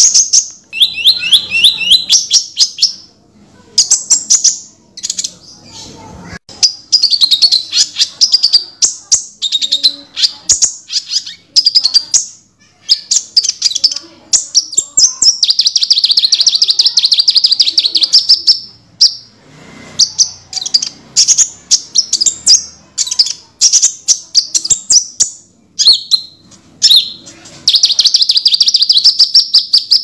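Crimson sunbird (burung konin) singing: rapid high-pitched trills and fast runs of sharp chip notes, with brief pauses between phrases.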